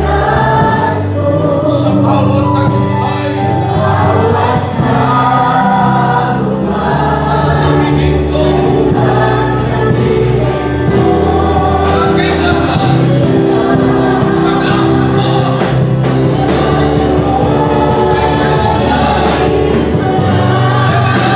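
A group of voices singing a gospel worship song with held notes over steady instrumental accompaniment.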